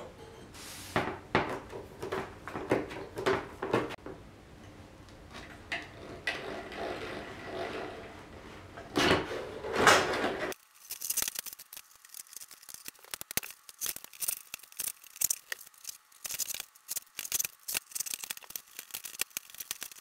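Hand-work noises on a plastic sled: irregular knocks, clicks and scraping as an aluminium plate is fitted and drilled through with a hand drill. About halfway through the sound turns thin and light, a quick run of small clicks and rustles as rope is worked through the fittings.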